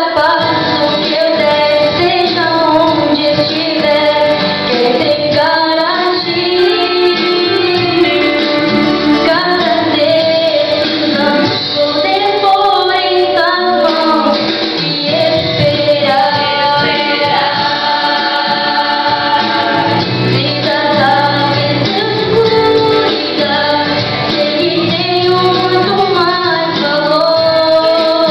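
A woman singing a Christian song into a microphone, with a vocal group and musical accompaniment behind her.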